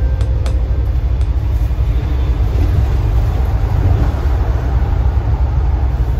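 Steady low rumble of a moving bus heard from inside the cabin, engine and road noise together. A musical note fades out in the first second.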